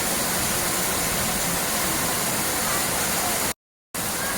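Steady rushing of falling water, with a sudden cut to silence for a moment about three and a half seconds in.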